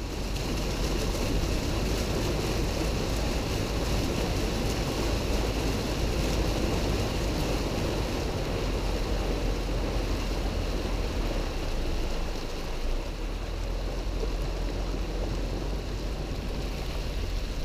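A car driving slowly through a flooded street: a steady rush and slosh of floodwater pushed aside by the car, over a low rumble.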